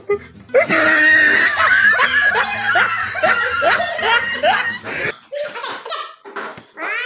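A group of children and a woman laughing loudly together, several voices overlapping. It breaks out about half a second in, fades around five seconds in, and a few short giggles follow near the end.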